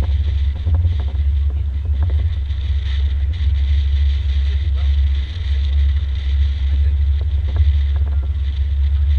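Cabin cruiser under way: a steady, loud low rumble of wind buffeting the microphone and the boat's engine, with an even hiss of wind and water over it.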